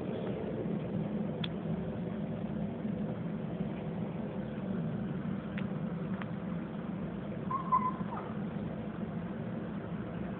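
Steady low background hum, with a few faint ticks and a short high squeak about eight seconds in.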